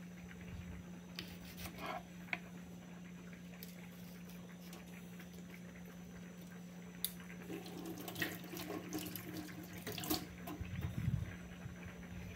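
Faint water from the kitchen sink and small knocks and handling noises as a seasoning pepper is cut and deseeded on a wooden board, with a few light clicks and a busier stretch of handling about three quarters of the way in. A steady low hum runs underneath.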